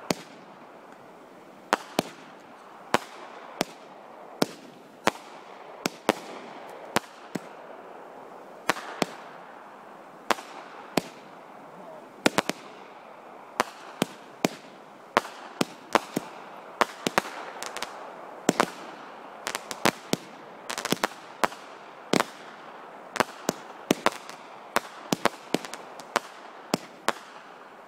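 Aerial fireworks bursting in quick succession: a long, irregular run of sharp bangs, about one or two a second, with a steady rush of noise between them.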